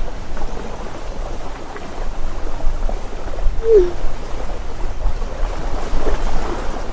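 Steady rushing outdoor noise with a low rumble, with one short sliding tone about four seconds in.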